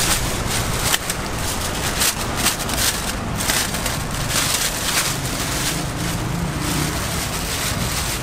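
Knife crunching and scraping through a durian's spiky husk in repeated rough, irregular strokes, over a steady low hum.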